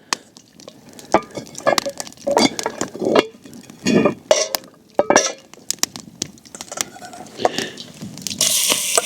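Metal utensils clinking and knocking against a Dutch oven and dishes. Near the end a sizzle starts as meat goes into the hot oil.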